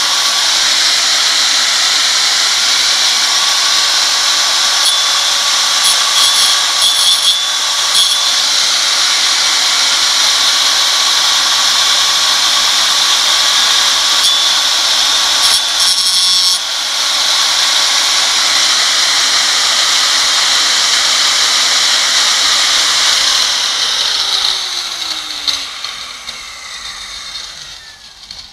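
Angle grinder cutting through granite skirting board: a loud, steady, high-pitched grinding with a few brief clicks. Near the end the cut stops and the grinder winds down, its pitch falling until it goes quiet.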